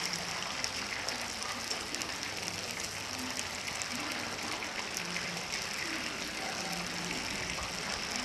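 Batter-coated chicken pieces deep-frying in hot oil: a steady, dense crackling sizzle.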